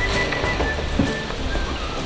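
Background music with a steady hiss underneath.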